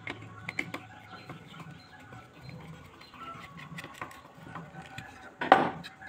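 Small clicks and taps of metal and plastic parts being handled while an electric hand planer is reassembled, with one louder scraping knock about five and a half seconds in.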